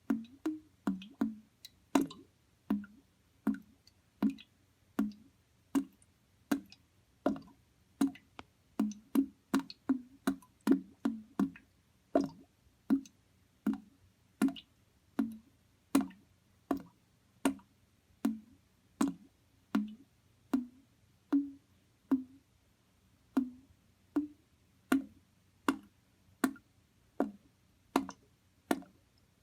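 Water bubbling in separate low gurgling pops, about one or two a second at an uneven pace, each bubble breaking with a short hollow plop.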